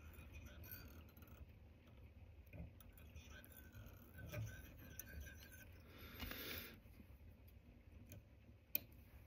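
Near silence with faint handling of thread and materials, a brief scratchy rustle about six seconds in, and near the end a single sharp snip of fine fly-tying scissors cutting off the spare quill at the hook.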